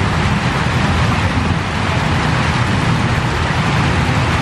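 Heavy rain falling steadily, a dense even hiss with a low rumble underneath.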